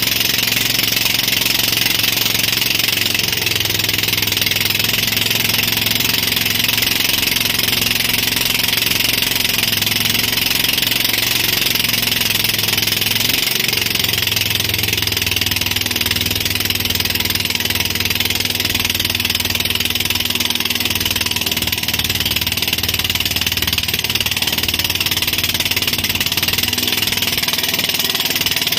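A motorboat's engine running steadily while towing a banana boat, under a strong, steady hiss of wind and churning wake.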